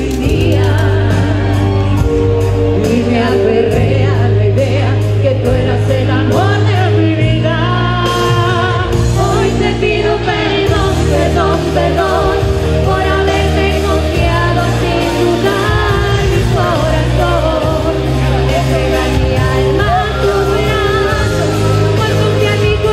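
Two women singing a pop ballad duet into microphones, amplified over a steady instrumental accompaniment with a low bass line.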